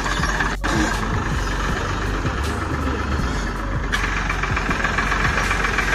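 Ford 3600 tractor's three-cylinder diesel engine running steadily, with a fast, even chugging beat and a brief dropout under a second in.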